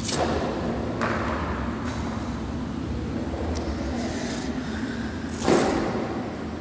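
Steady low hum of gym background noise with a few short rushing or clattering noises; the loudest comes about five and a half seconds in.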